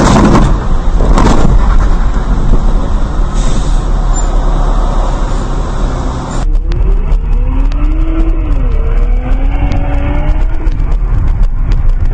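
A car driving on a wet road, heard through a dash camera: steady engine and tyre noise, with two loud thumps in the first couple of seconds. About six seconds in, the sound changes abruptly, and a wavering tone rises and falls over the road noise for a few seconds.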